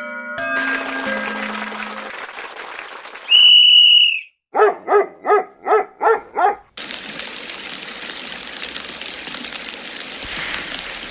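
A quick string of cartoon sound effects: a few bright mallet notes, then a loud steady whistle blast about three seconds in, six quick pitched yaps like a small dog barking, and then a steady rushing hiss to the end.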